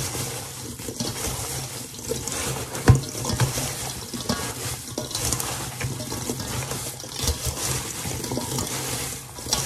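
Hands mixing diced, sugared apples in a stainless steel bowl: a continuous wet rustling and squishing of the pieces, with small clicks of apple against the metal and one sharper knock about three seconds in.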